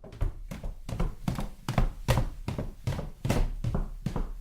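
A quick, irregular series of thuds and knocks, about three or four a second, in a small room.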